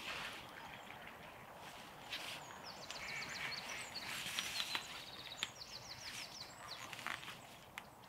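Camouflage fabric of a pop-up ground blind rustling as it is pulled into shape, with a few sharp clicks from its frame. A small songbird sings quick trilling phrases of rapid repeated notes several times in the background.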